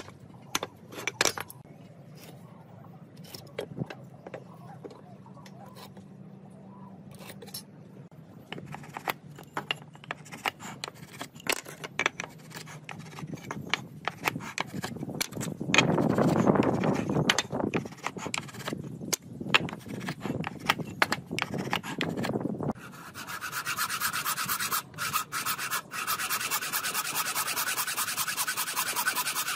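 Woodworking hand tools on hardwood: light knocks and taps as boards and marking tools are handled, then a marking gauge scraping along the wood, louder for several seconds past the middle. For the last seven seconds a fine-toothed hand saw cuts across a hardwood board in quick, steady strokes.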